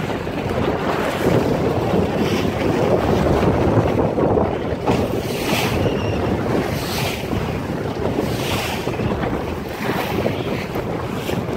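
Strong wind buffeting the microphone over choppy water rushing and splashing along a Starwind 19 sailboat's hull under sail in high wind. Surges of splash and hiss come every second or two.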